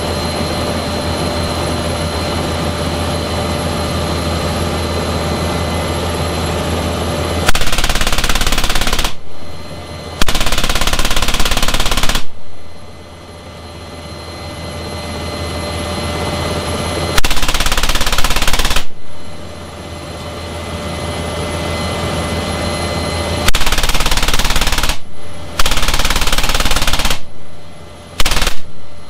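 NH90 helicopter's turbine and rotor noise heard from inside the open cabin door, then an M3M 12.7 mm heavy machine gun firing from the door in six bursts, starting about seven and a half seconds in. The bursts last one to two seconds each, and the last one is short.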